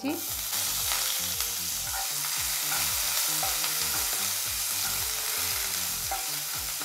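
Chopped onion dropped into hot oil in a nonstick kadai, sizzling at once as it hits the oil and going on steadily while a silicone spatula stirs it.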